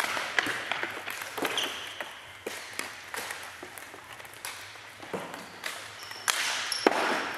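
Floorball shots and saves in a large sports hall: scattered clicks and knocks of sticks striking the plastic ball and the ball hitting the goalkeeper and the floor. A short metallic ping comes about one and a half seconds in, and a louder rustling burst near the end.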